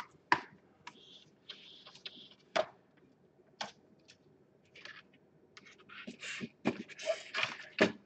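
Hard plastic and circuit-board handling noises: scattered clicks, light knocks and short scrapes as a laptop's bottom case and bare motherboard are picked up, shifted and set down on a table.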